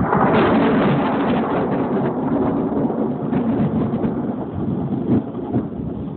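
A long, crackling rumble of thunder that peaks about half a second in and slowly fades, with rain falling.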